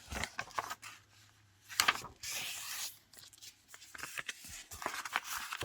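A sheet of scrap paper handled and creased by hand: a sharp paper crackle about two seconds in, then about a second of rubbing as the fold is pressed down, with light rustles and taps.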